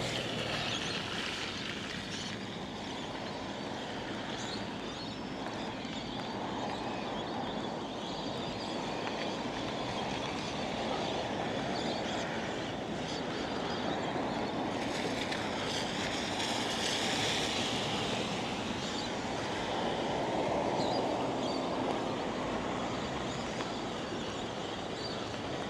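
Vehicles, trucks among them, passing on a rain-soaked road: tyre hiss on the wet surface swells and fades a few times over a steady wash of noise.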